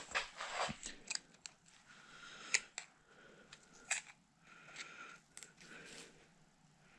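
Quiet handling sounds: scattered light clicks and taps with some rustling, from hands handling parts and tools in an engine bay.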